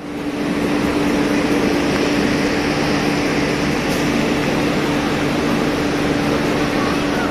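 Steady mechanical drone of a passenger train standing at a station platform, its running machinery giving a constant hum under an even hiss.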